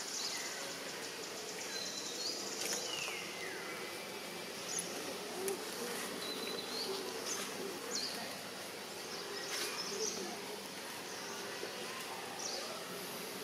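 Steady outdoor insect hum, with a few short high chirps and a falling whistle about three seconds in.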